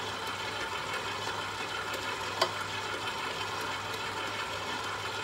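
Stand mixer motor running steadily at low speed while dry ingredients are spooned into its steel bowl, with a single sharp tap about halfway through.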